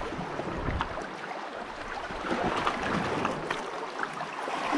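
Sea water washing and splashing against shore rocks: a steady rush with small, scattered splashes.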